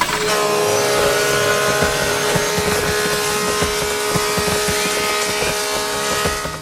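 Machine engine running loudly and steadily under load, with a high steady whine over a rough low rumble.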